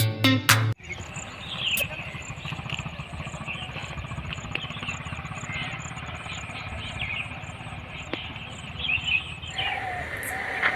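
Birds chirping over a steady low rumble with a fast, even pulse. A music track cuts off in the first second.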